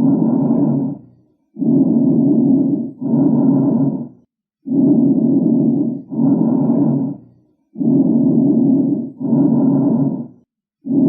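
Recorded lung breath sounds: a regular cycle of breathing, each breath an inhalation and an exhalation of about equal length with a brief pause between, about one breath every three seconds.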